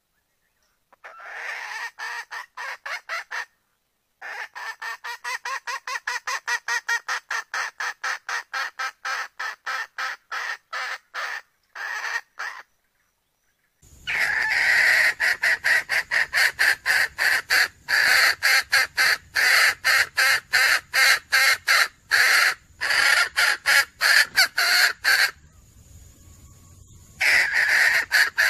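Red junglefowl hen clucking in rapid runs of about four to five clucks a second, broken by short pauses: a wild hen's call to draw cocks. About halfway through the clucking becomes louder, with a low rumble beneath it.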